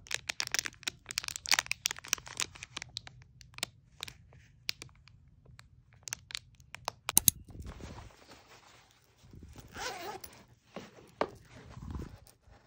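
Clear cellophane packaging bag crinkling and crackling as it is handled, for about the first seven seconds. Then a thump, and softer rustling of a fabric toiletry pouch as items are tucked into it.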